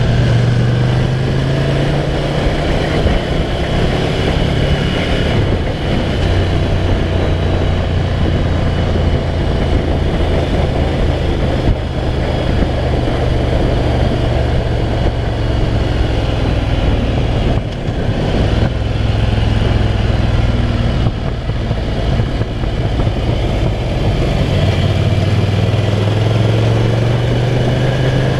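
Ducati Scrambler's L-twin engine running steadily under way on the road, with wind and road noise on the onboard microphone. The engine dips briefly about 12 and 18 seconds in, and its pitch rises again near the end as it speeds up.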